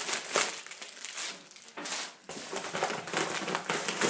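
Plastic packaging crinkling and rustling in irregular bursts as a parcel is unwrapped by hand.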